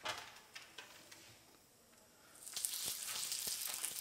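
A few light clicks, then about two and a half seconds in a piece of dry-aged beef hits a hot, oiled grill pan and starts to sizzle. The sizzle keeps going steadily as the meat begins to sear.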